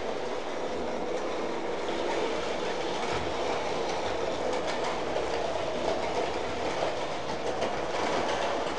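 Vintage tinplate 0 gauge toy train running on tinplate track: a steady metallic clatter of wheels over the rails, with fine rapid clicks.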